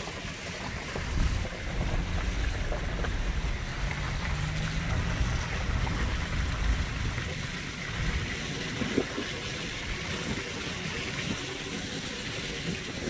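Road rumble of a moving vehicle with wind buffeting the microphone, a steady low noise that swells and dips.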